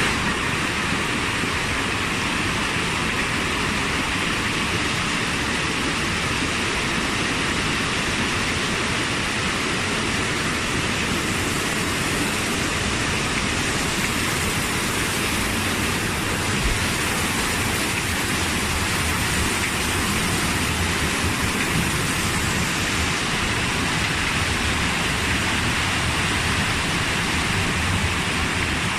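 Steady rushing of water in a heavy tropical downpour and flood.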